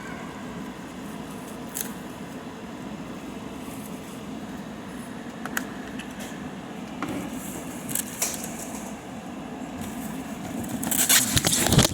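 TCL portable air conditioner running steadily, with a few small clicks. About eleven seconds in, a loud clatter and rattling as the phone recording it is dropped and handled.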